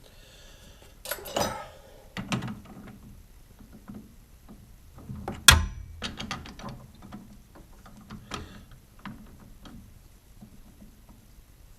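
Scattered metal clinks and knocks from hand work on a lathe chuck and workpiece while the part is dialed in, the lathe not running; one sharp knock about halfway through is the loudest.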